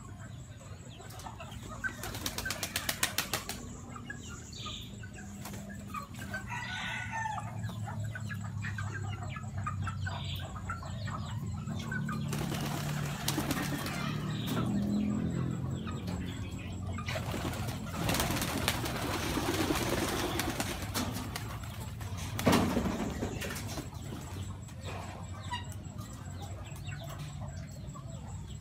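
Flock of domestic pigeons with bursts of wingbeats as birds take off and land, a quick run of flaps a couple of seconds in and more flapping later, over low cooing.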